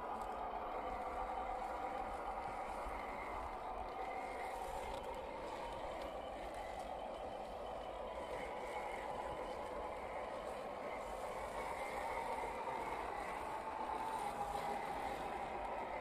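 1/10-scale RC crawler's electric motor and gear drive whining steadily, the pitch drifting a little as it crawls over sandy mounds.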